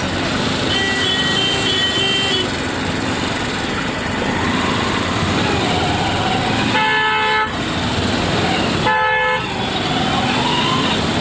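Steady road-traffic noise heard while riding a motorcycle through city streets. A vehicle horn honks twice in loud short blasts about two seconds apart, after a fainter horn near the start.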